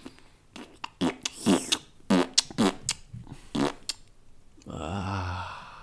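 Comic fart noises: several short ones with falling pitch, then one longer, low, buzzing fart near the end.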